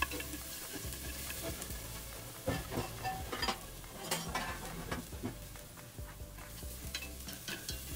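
Minced shallots and garlic sizzling gently in oil in a stainless steel pot, frying until fragrant, with a few light clicks in the middle.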